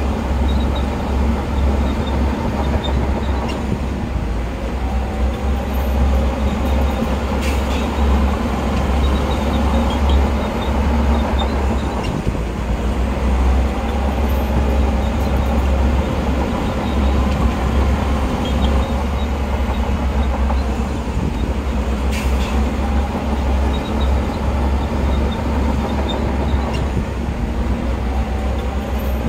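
Heavy diesel earthmoving machinery running steadily with a deep, continuous engine rumble, and a couple of sharp knocks.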